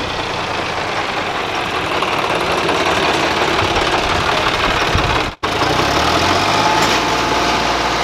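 John Deere tractors' diesel engines running hard under load, pulling a heavy trailer through sand. The sound drops out for an instant about five seconds in, and a steady low engine hum follows.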